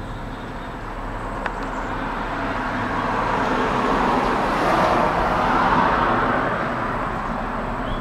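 A road vehicle passing: a rushing noise that builds, is loudest about five seconds in, then fades away.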